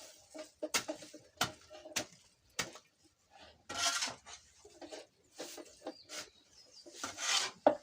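Metal clinks and knocks, about five sharp ones, with a longer scraping rustle near the middle and another near the end, from a metal feed container or utensil being handled.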